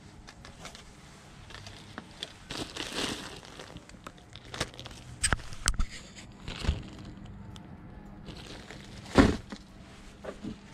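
Clear plastic zip bag of lead sinkers crinkling and rustling as it is handled, with several sharp clicks and knocks of small items. A single louder thump comes about nine seconds in.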